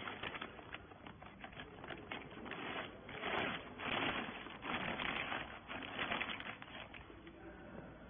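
Clear plastic bag crinkling and rustling as it is pulled by hand over a compressed bale of rags, in an uneven run of crackles that is loudest a few seconds in.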